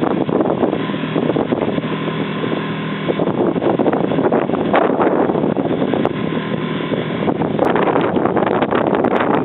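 Strong wind buffeting the microphone with a constant rushing noise, aboard a sailing boat under way in a fresh breeze of Beaufort 4 or more, with a faint steady hum in the first few seconds.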